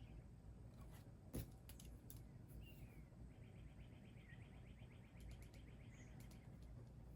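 Faint birdsong: a few short chirps and a fast trill of about ten notes a second lasting roughly two and a half seconds, starting about three seconds in. Scattered computer keyboard key clicks, the loudest about one and a half seconds in.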